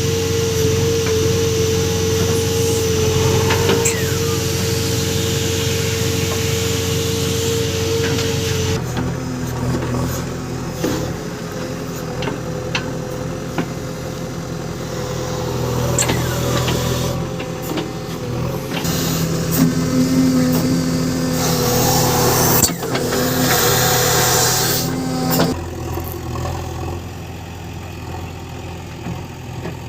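JCB 3DX backhoe loader's diesel engine running steadily as the machine works. A steady whine sits over it for the first third, and there are bursts of hiss around the middle and again a few seconds later.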